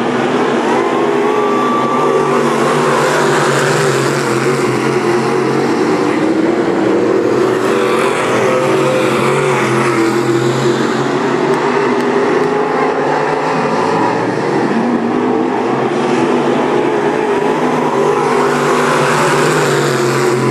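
Several dirt-track race cars running flat out around the oval together, a loud, continuous engine noise whose pitch rises and falls as the cars go through the turns and down the straights.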